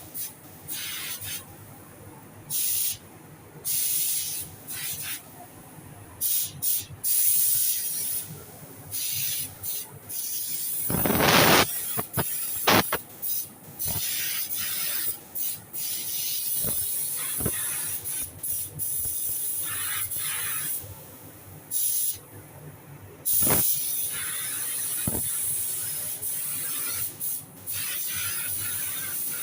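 Compressed-air paint spray gun hissing in repeated on-off bursts as its trigger is pulled and released, spraying a lacquer top coat. There is a louder brief burst about eleven seconds in.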